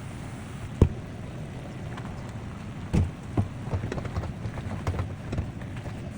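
Pan cooking: a steady sizzling hiss, with a sharp utensil knock against the pan about a second in and another about three seconds in, followed by a run of lighter clinks and taps.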